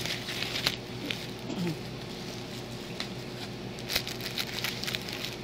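Plastic bags and cellophane wrapping rustling and crinkling as they are handled, with many small irregular clicks and ticks.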